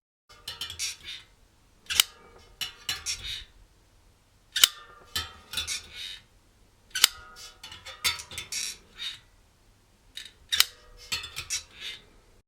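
A run of sharp metallic clicks and clinks, with shorter scraping and rattling between them; four clicks stand out as the loudest, each with a brief ring.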